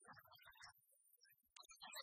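Near silence: faint room tone with a few brief, very quiet sounds.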